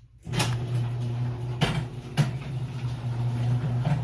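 Garage door opener motor starting on the remote's signal, about a third of a second in, and running steadily as it raises the sectional door, with a few clicks and knocks from the door as it moves. The opener answers its remote here because its light has been switched off; with the light on it does not respond.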